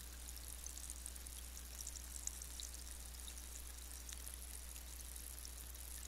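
Seltzer fizzing in a glass: a steady, fine crackle of tiny carbonation bubbles popping at the surface, with one slightly sharper pop a little over two seconds in.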